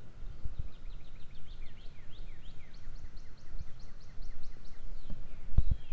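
A songbird sings a fast run of short sweeping notes, first falling and then higher and rising, over a low steady rumble of outdoor noise. Two dull knocks sound near the end.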